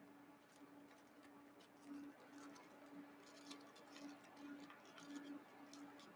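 Faint crinkling and crackling of aluminium foil being pressed and folded around a small camera by hand, in short scattered crackles, over a faint steady hum.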